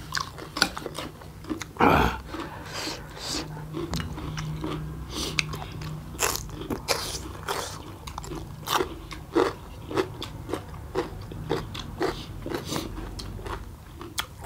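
Close-miked eating of noodles mixed with dried buffalo meat: irregular crunching, biting and chewing throughout, with a louder, longer bite or mouth sound about two seconds in.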